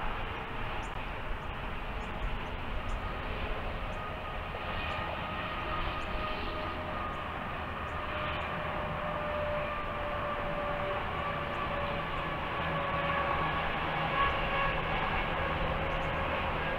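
Steady rumble of a train, with a few long, drawn-out tones that drift slowly in pitch.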